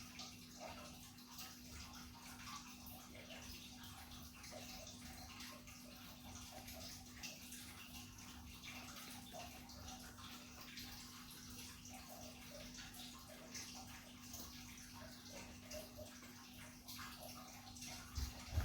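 Faint room tone: a steady low hum under a soft hiss, with small soft rustles and ticks.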